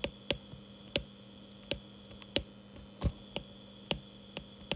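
Stylus tip tapping on a tablet's glass screen during handwriting: sharp, irregular hard clicks, about two a second, over a faint steady hum.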